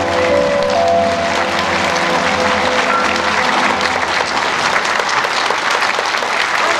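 Audience applauding as the song's final held chord fades out over the first second or two; the clapping then continues on its own.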